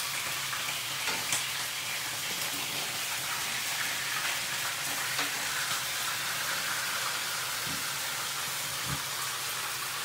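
Pork hocks searing in hot oil with caramelized sugar and oyster sauce in a nonstick wok, giving a steady, even sizzle.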